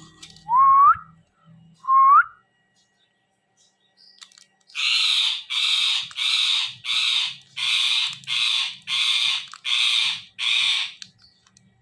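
A ring-necked parrot screeching: about ten harsh calls in a steady run, roughly one every half second. Before them, near the start, come two short whistles that glide upward.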